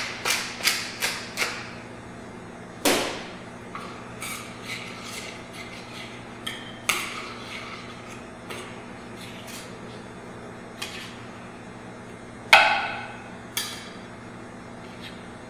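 Wooden pepper mill grinding at the start, a quick run of crunching clicks about three a second for the first second and a half. Then a metal spoon clinking and scraping against a stainless steel sauté pan, with a few louder clanks, the loudest about twelve and a half seconds in.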